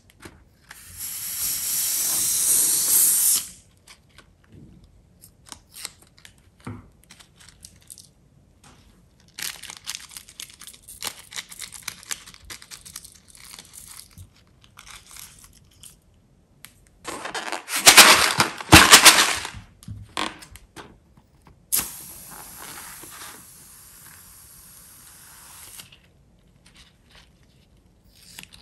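A filled rubber balloon being squeezed out into a bowl of sequins. There are hissing spurts of its contents and scattered small crackles, with the loudest spurting a little past halfway through.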